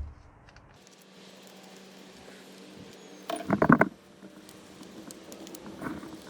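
Socket wrench clicking and clinking in a short rapid run about three and a half seconds in, with a few lighter clicks near the end, as the nuts on the truck's negative battery cable terminals are loosened.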